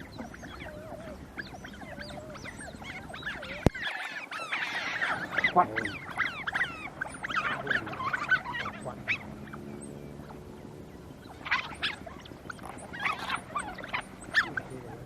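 Smooth-coated otters squabbling, several at once giving quick high chirps and squeals in overlapping bursts, busiest in the middle and again near the end. One sharp click sounds a few seconds in.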